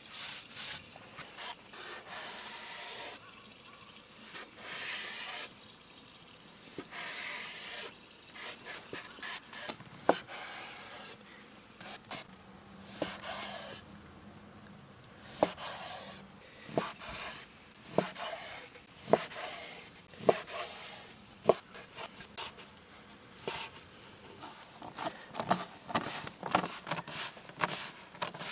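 Utensils scraping and stirring in a pan of wet food, then sharp clinks of metal on cookware or plates, many in the second half.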